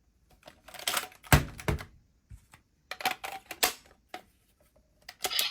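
Plastic clicks and clacks of the PDX Laser Raise Riser toy being handled and its buttons and parts worked, in three quick clusters with quiet between, the loudest a thud about a second in.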